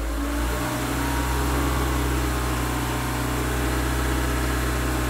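Mazda 2 Skyactiv engine, heard from inside the cabin, revving with an iForce throttle controller plugged in. The revs rise quickly in the first second and then hold steady at a raised speed with the same pedal position, showing quicker throttle response.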